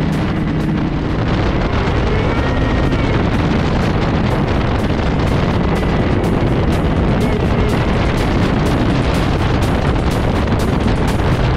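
A mini jet boat under way, its supercharged four-cylinder jet-ski engine running hard. Heavy wind noise on the microphone and a stream of short sharp knocks run over the engine.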